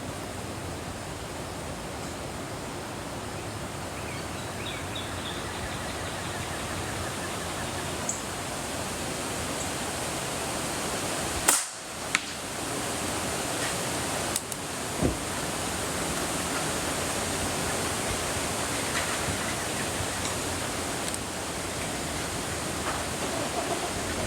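Steady rushing hiss of wind on the microphone, with a single sharp airgun shot about halfway through, followed by a fainter click about half a second later and another a few seconds on.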